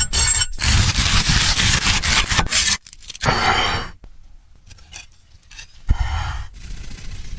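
Loud scraping and rubbing noise for nearly three seconds, then two short bursts of the same kind separated by quieter pauses.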